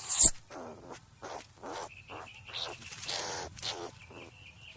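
Striped skunk making a string of short, soft, breathy sounds, two or three a second, with one sharper and louder one just after the start.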